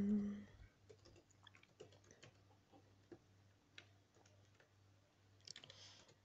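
Faint, irregular keystrokes on a computer keyboard, typing out an email address.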